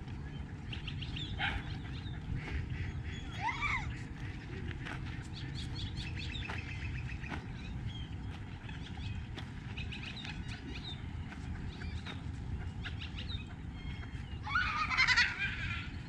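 Ducks and other birds calling: scattered chirps and short call notes throughout, with a louder burst of calls near the end.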